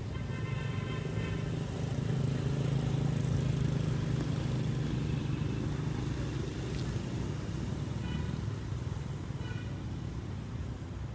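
Low, steady engine rumble of passing road traffic, swelling for a few seconds and then easing. A few short high-pitched squeals sound at the start and twice more near the end.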